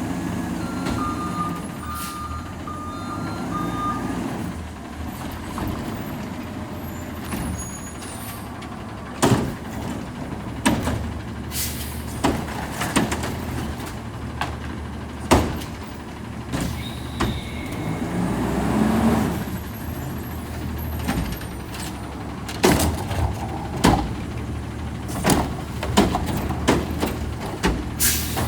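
Garbage truck with a McNeilus front-loader body, its engine running steadily while a reversing alarm beeps near the start. From about a third of the way in come many sharp metal clanks and bangs, with an air-brake hiss and the engine revving up about two-thirds through.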